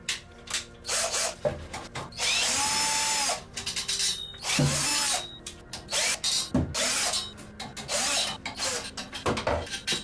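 Cordless drill-driver backing screws out of the aluminium shelf frame in a string of short start-stop runs, the longest about two seconds in. Short knocks come between the runs.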